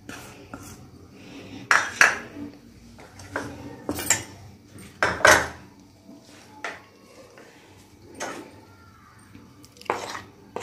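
Metal spoon clinking and tapping against a stainless steel bowl and small spice bowls in scattered single knocks, a couple of them coming quickly near the end.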